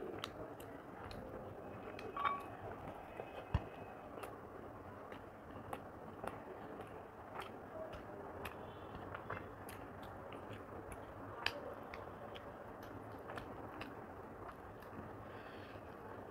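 A person eating rice and chicken curry with her hand: quiet chewing with scattered small clicks and smacks.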